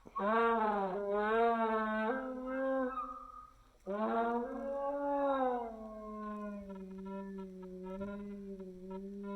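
An animal's drawn-out, howl-like calls that waver in pitch: two calls close together, then a longer one about four seconds in that levels off into a steady held tone.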